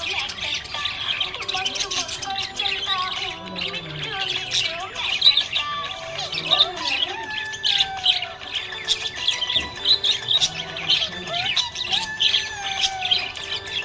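Budgerigars chirping and warbling in a rapid, continuous chatter.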